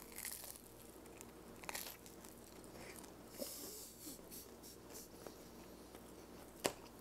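Biting into and chewing a crusty slice of focaccia: a few faint crunches spread over the first four seconds, with one short, sharp click near the end.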